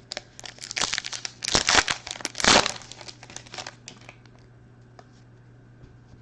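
A trading card pack wrapper being torn open and crinkled, in a run of rustling bursts that is loudest around two seconds in and dies away by about four seconds, leaving a few light ticks.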